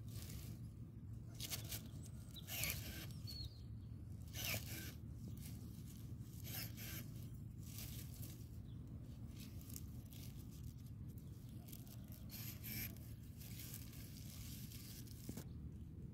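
Pruning shears snipping and tearing away shoots at the base of a young hazelnut sapling, short crisp cuts and rustling twigs at irregular intervals, over a low steady background hum.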